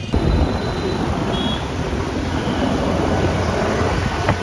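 Traffic noise heard from a vehicle moving along a busy city road: a steady low engine and tyre rumble with road hiss.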